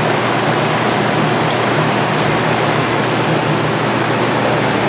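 Steady loud rushing noise with a faint low hum, the workshop's background noise, with a few faint light metal ticks as clutch plates are set into a marine gearbox clutch pack.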